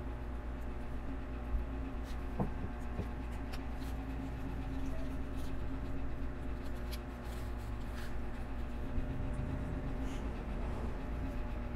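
Light clicks and scratchy handling of plastic LEGO bricks as a set is being built, over a steady background hum.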